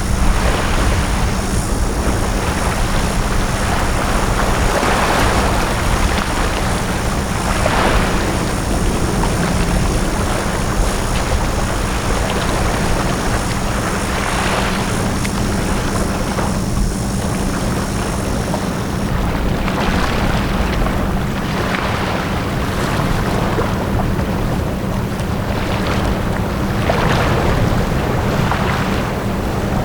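Gentle sea waves washing onto a beach, swelling and falling back every few seconds, over a steady low hum. A thin high-pitched whine runs above them and cuts off suddenly about two-thirds of the way through.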